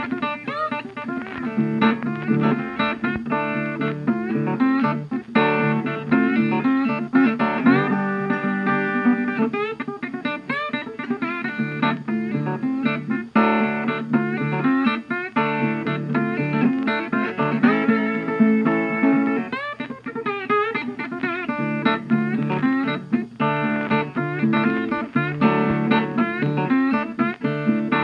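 Background music led by guitar, plucked notes over a steady bass.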